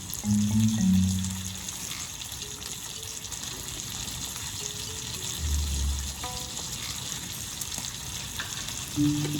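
Food sizzling in a frying pan, a steady hiss, with low notes of background music at the start and again near the end.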